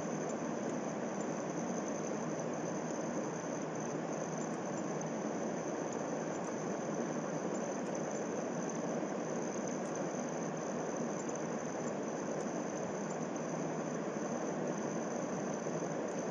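Steady background hiss with a faint, thin high-pitched whine running through it.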